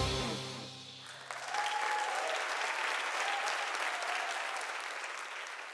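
Audience applause as a sung worship song ends: the last held notes of the singer and band die away in the first second, then clapping starts about a second in and slowly fades out.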